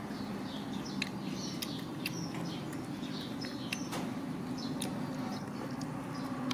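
Small birds chirping repeatedly in short, high, falling notes, over a low steady hum, with a few sharp clicks.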